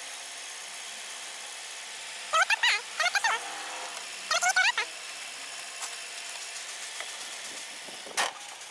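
Steady outdoor hiss, broken by two short groups of squeaky, wavering chirps about two and four and a half seconds in, then a single sharp knock near the end as a car bonnet is lowered.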